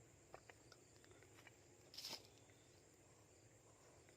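Near silence: faint outdoor background with a thin steady high-pitched tone, and one short rustle about two seconds in.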